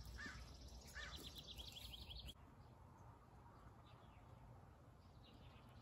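Near silence with faint bird calls: a few short chirps and a quick trill of rapid high notes over the first two seconds, then only a faint low background hum.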